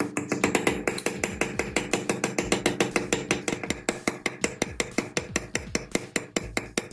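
Hammer tapping rapidly on steel hammer-drill parts clamped in a bench vise: sharp metal-on-metal strikes, several a second at an even pace, each with a short ring.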